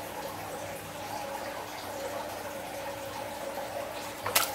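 Wet, sticky slime squishing as hands press and knead it in a glass dish, with one sharp click near the end.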